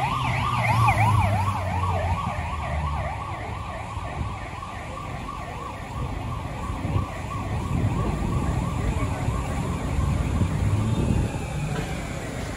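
Ambulance siren in rapid yelp mode, its pitch sweeping up and down about three times a second, fading away over the first few seconds and leaving a low rumble of street traffic.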